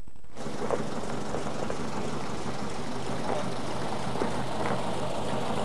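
Narrow-gauge steam locomotive working, a steady rushing noise with a low hum and a few faint, irregular knocks.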